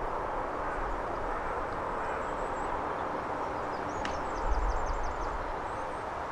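Steady outdoor noise with low wind rumble on the microphone, and a single sharp, faint click about four seconds in as a golf club strikes the ball on a pitch shot. A quick run of high bird chirps follows just after.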